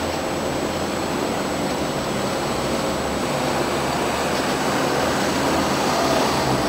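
Ride-on lawn mower's engine running steadily, heard from a distance as an even drone under a wash of background noise.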